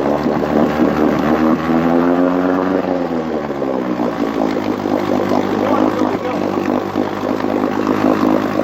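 1959 Johnson QD-20 10 hp two-cylinder two-stroke outboard running in a pail of water. Its speed rises about two seconds in, drops back around four seconds, then holds steady at a lower speed. It sounds really good on a carburetor that was never touched.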